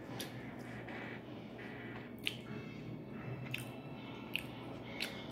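Wet chewing of ketchup-dipped french fries, with about five sharp mouth smacks and clicks scattered through it.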